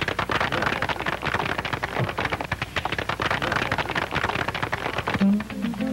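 Crowd applauding, a dense, steady clatter of clapping; about five seconds in it stops and an acoustic guitar starts strumming.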